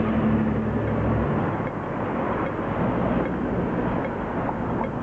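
Street traffic noise, with a bus engine's low hum dying away about a second in. Over it, the audible pedestrian signal ticks faintly and slowly, about once every three-quarters of a second.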